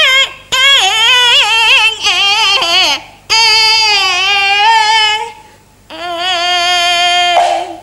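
A high female voice singing in Teochew opera style, the pitch wavering and sliding, in about five phrases with short breaks between them.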